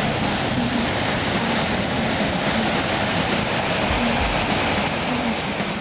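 Steady, loud rushing of a waterfall.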